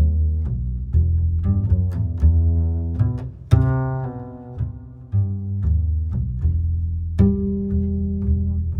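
Background music: plucked and bowed low strings playing a light melody, with sharply plucked notes.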